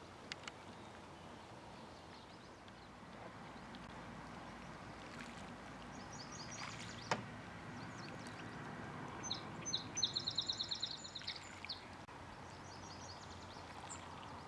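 Steady open-air haze of wind and water, over which a small bird sings short rapid trills several times; the longest and loudest run comes about ten seconds in. A single sharp knock about seven seconds in.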